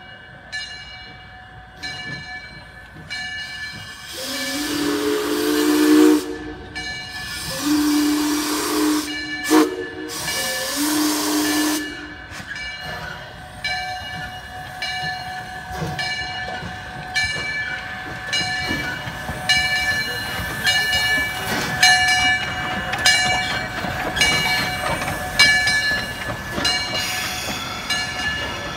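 Steam locomotive No. 126 blowing its whistle in the grade-crossing pattern, two long blasts, a short one and a long one, with steam hissing around the blasts. A bell rings steadily with regular strokes throughout as the engine rolls through the crossing.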